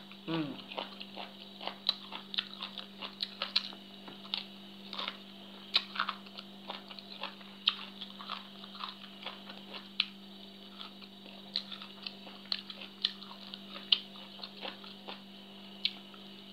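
A person eating papaya salad with shrimp and rice noodles by hand: irregular sharp clicks and smacks of chewing and mouth noises, over a steady low hum.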